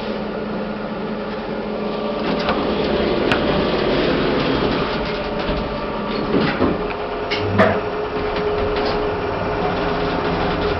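KONE EcoDisc lift running: a steady mechanical hum with a couple of held tones, broken by a few sharp clicks and knocks.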